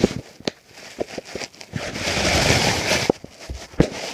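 Scuffling and rustling, with scattered sharp knocks. A louder rustling rush comes about two to three seconds in.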